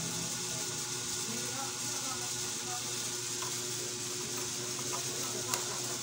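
Steady hissing background noise, with one sharp click about five and a half seconds in.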